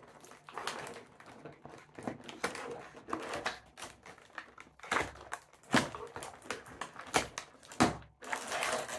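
Hands unpacking a figure from a squashed cardboard box and its plastic wrapping: an irregular run of clicks, rustles and crinkles, with a few sharper knocks in the second half.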